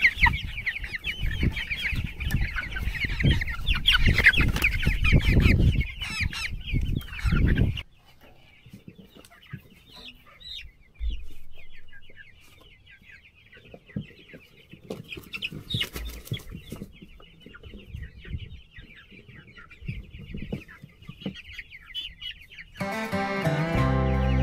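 A flock of broiler meat chickens peeping and clucking, busy and loud for the first eight seconds, then dropping abruptly to scattered, quieter calls. Guitar music comes in shortly before the end.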